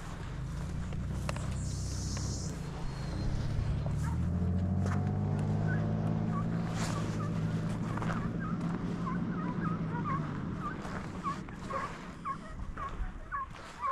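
Vehicle engine running, picking up revs about three seconds in, holding, then fading out around ten seconds in. Over its later part, hounds give a run of short, high yelps, about two a second.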